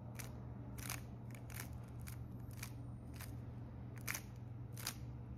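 Plastic 3x3 speed cube being turned through a nine-move corner-orientation algorithm: a series of sharp clicks as the layers snap round, about one every half second or so, unevenly spaced.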